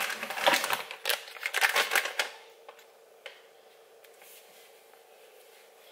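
Crinkly rustling of a cloth or wipe and its packet being handled for about two seconds, then a couple of faint taps, over a faint steady hum.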